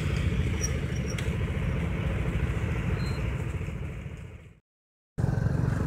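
Motorcycle engines idling and running together in street traffic, a steady pulsing engine sound. It fades away about four and a half seconds in, cuts to silence for half a second, then starts again.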